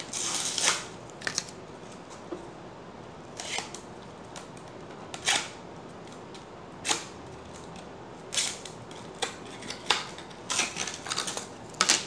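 Short plastic clicks and rustles of fingers working at an SSD, peeling off the small plastic tab that protects its connector. The sounds come singly every second or so, then bunch together near the end.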